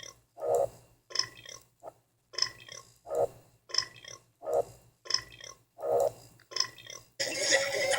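A person belching over and over in short, evenly spaced burps, about eleven in a row, roughly one every 0.6 s. Music comes in about seven seconds in.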